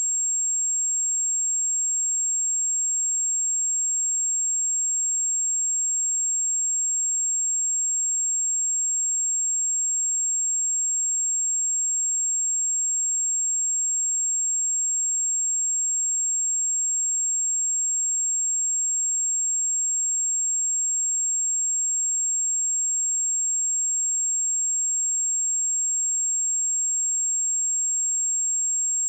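A pure 7533 Hz sine-wave test tone, a single steady high-pitched whistle held at a constant level.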